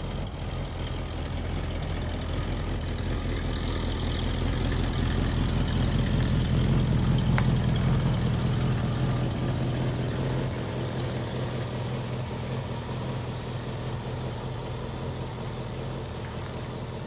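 1966 Ford Mustang's original 289 small-block V8 running at low speed as the car rolls past close by: loudest about halfway through, then fading as it moves away. One sharp click about seven seconds in.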